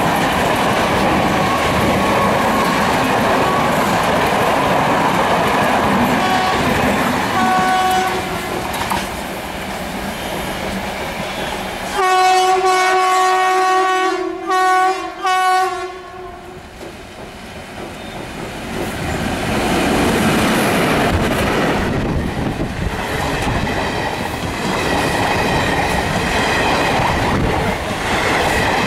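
Indian Railways train running past with wheels clattering on the rails. Its locomotive horn gives two short toots about a third of the way in, then a long loud blast of about four seconds that breaks twice near its end; the rail noise then drops and builds again.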